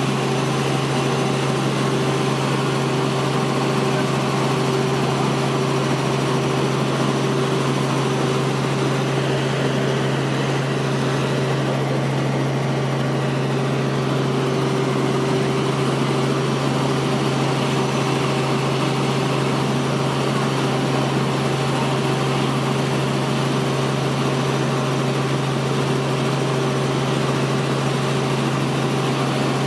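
Helicopter engine and rotor noise heard from inside the cabin in flight: a steady, unchanging hum with a constant low tone.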